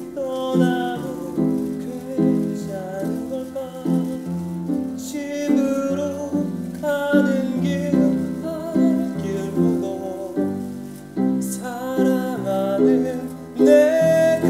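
A song from a stage musical: a man singing with vibrato over an instrumental accompaniment of changing chords, the voice growing louder near the end.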